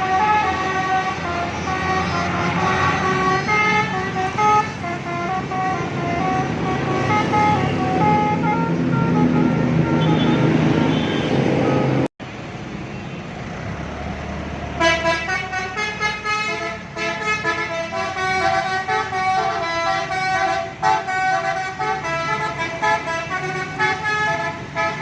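Telolet bus horn: a multi-tone air horn playing a tune in stepping notes, over a running bus engine. The sound cuts off abruptly about halfway, and a few seconds later another horn tune starts up.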